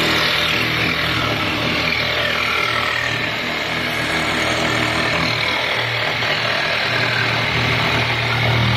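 Corded electric jigsaw running steadily as it cuts through marine plywood, trimming the excess plywood flush with the hull frame.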